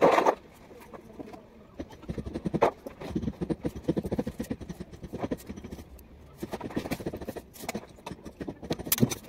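A run of quick, irregular knocks and scrapes from handling and fitting a plastic water pipe, with a loud knock at the very start.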